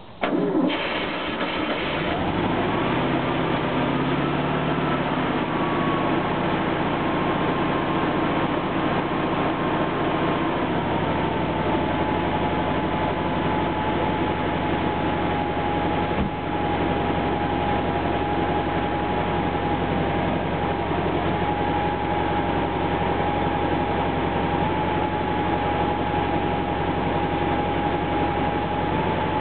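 1956 VW Beetle's air-cooled 30 PS (36 hp) flat-four engine catches at the very start and runs, on its first start after nearly 40 years laid up. A whine climbs as the engine revs up after catching, then drops a step about ten seconds in as the engine settles into a steady idle.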